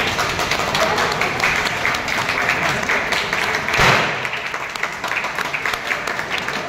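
Crowd clapping steadily and quickly, with a louder burst about four seconds in as confetti is shot over the unveiled car.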